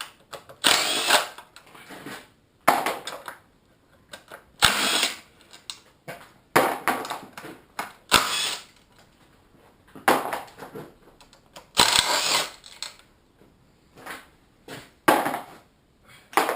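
A handheld power tool spinning out the bolts of an LS V8's oil pan, running in a string of short bursts of under a second to about a second each, with pauses between as it moves from bolt to bolt.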